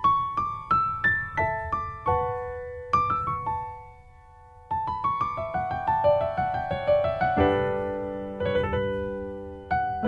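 Background piano music: single notes struck and fading, a short lull about four seconds in, then quick rising runs and fuller chords.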